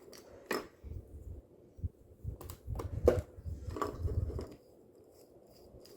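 Handling sounds of a C9 Christmas light bulb being screwed into its socket on a light string: scattered small clicks and scrapes over low rubbing, which die down after about four and a half seconds.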